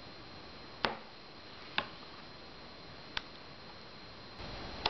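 A kitchen utensil tapping against a container four times, sharp single knocks spread a second or so apart, as thick blended tofu is scraped out into a colander.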